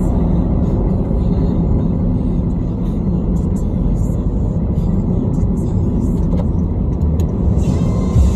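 Car driving along a highway: a steady low rumble of tyres and engine.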